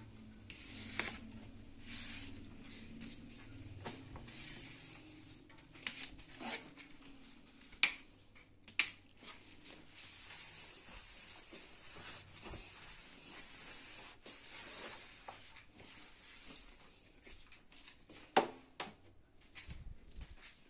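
Dishes and utensils clinking now and then at a kitchen sink during dishwashing, with a few sharp clinks standing out about eight, nine and eighteen seconds in, over a faint steady hiss.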